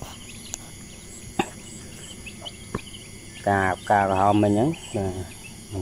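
Insects chirping in the background, a faint steady high trill with evenly pulsing chirps, broken by two sharp clicks; about three and a half seconds in, a man's voice speaks briefly.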